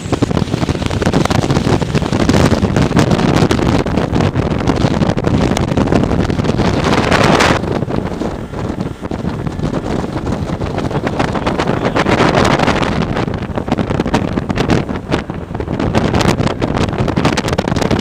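Wind rushing over the microphone of a fishing boat running fast across choppy water, with the outboard motor and splashing spray underneath. The rush swells and eases in gusts.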